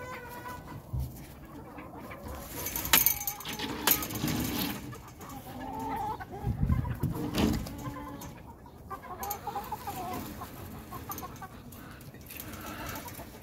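Chickens clucking, with a few sharp clicks and knocks mixed in.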